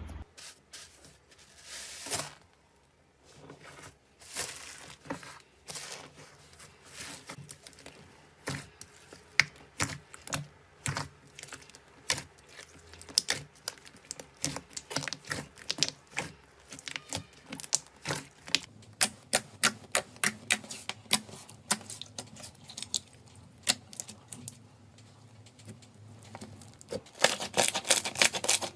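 Slime being squished and poked by hand, giving a long run of small irregular clicks, pops and crackles, growing denser near the end.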